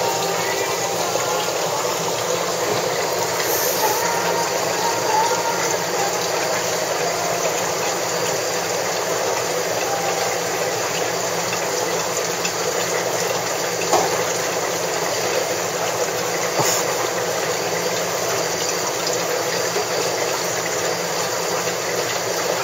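Steady water hiss of a running aquarium, the sound of its filtration moving water, with one faint click about two-thirds of the way through.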